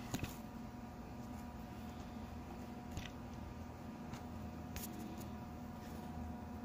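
Faint steady electrical hum of shop equipment, with a few light clicks and knocks from tools or metal being handled.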